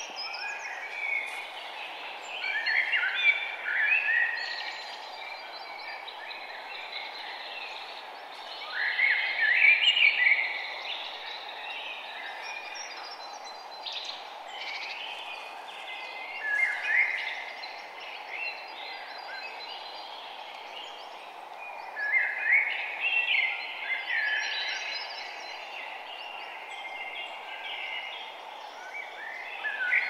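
Songbirds singing in clusters of quick, chirpy warbling phrases every few seconds, the loudest about nine seconds in, over a steady low background hiss.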